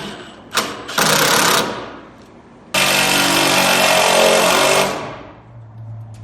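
A power driver, most likely an impact driver, driving fasteners into wooden floor joist blocking. There is a short run about a second in, then a longer run of about two seconds, which then winds down.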